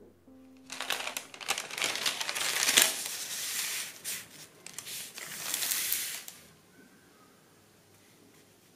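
Sheet of brown kraft paper crinkling and rustling as hands lay it down and smooth it flat, for about six seconds with a short lull midway.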